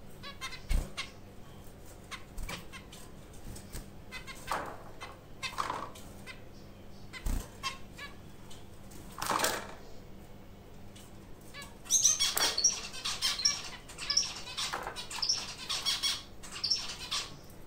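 White zebra finches fluttering and rustling about the cage, with scattered short wing flaps. About twelve seconds in they break into a run of short, high chirping calls that lasts to the end.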